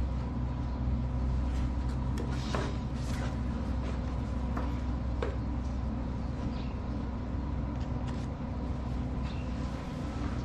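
Steady low hum with a few scattered knocks and clicks of metal being handled, with no welding arc running.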